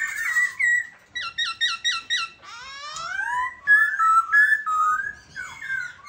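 Black-throated laughingthrush (khướu bạc má) singing: clear whistled notes, with a quick run of short repeated notes about five a second, then a long rising glide near the middle, then varied warbled phrases.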